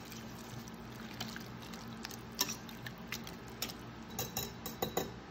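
A thick creamy pot-pie filling with vegetables being stirred in a glass bowl with a spatula and then a wire whisk: wet stirring with scattered clicks of the utensil against the glass, coming more often after about two seconds.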